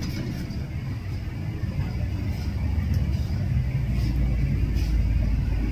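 A low, steady rumble that grows louder about halfway through.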